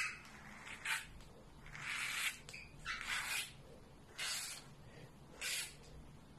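Pet slicker brush drawn through the single-strand macramé cord fringe, combing it out: six short brushing strokes, about one a second.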